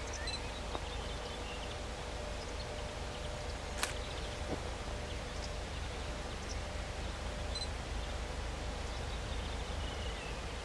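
Open-air trackside ambience: scattered short bird chirps over a steady low rumble and a faint constant hum, with one sharp click about four seconds in.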